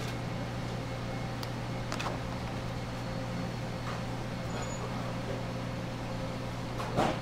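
Steady mechanical hum of commercial kitchen equipment, a low drone with a fainter steady higher tone. A few faint short clicks sound about two and four seconds in.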